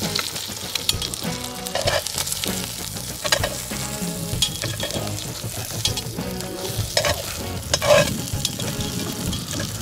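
Duck meat sizzling in a cast-iron Dutch oven as its fat renders out, with metal tongs knocking against the pot a few times.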